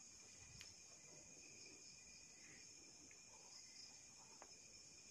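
Near silence with a faint, steady, high-pitched chirring of crickets, and two faint clicks.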